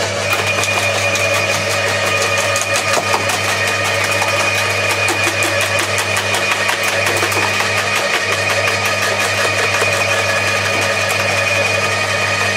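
Two electric roller-type quiet garden shredders, a Bosch AXT 2300 and an Atika LH 2500, running together as thuja branches are fed in. Their motors give a steady low hum, and the rollers crunch the twigs in a dense run of crackles and snaps.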